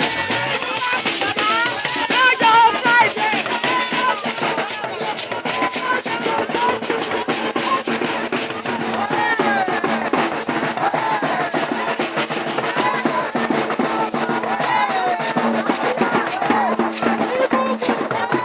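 Singing over shakers and drums: a fast, steady shaker rhythm with voices carrying a melody on top.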